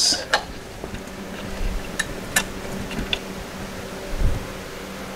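A few small metallic clicks and taps as the air horns' bracket and mounting bolt are handled and fitted, with a dull knock a little after four seconds, over a steady low hum.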